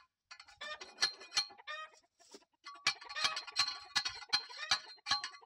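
Chickens clucking in short bursts, followed from about halfway by a quick, regular run of ringing clinks, about three a second.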